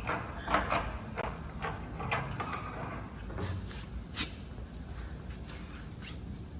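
Scattered light clicks and knocks over a low background rumble, most of them in the first two or three seconds.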